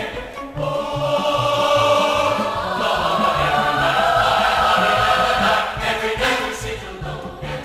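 Choir and orchestra performing a Broadway show tune, the voices holding long notes over a pulsing bass line.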